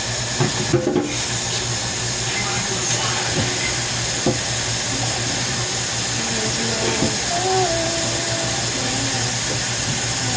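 Zucchini frying in hot vegetable oil in a pan, a steady sizzling hiss, with a low hum underneath and a few light clicks and knocks in the first half.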